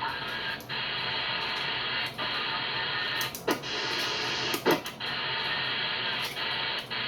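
CB radio receiver on the AM 11-metre band giving out steady hiss and static, broken by short regular dropouts. Two brief whistling squeals come through about three and a half seconds in and again a second later; the second is louder.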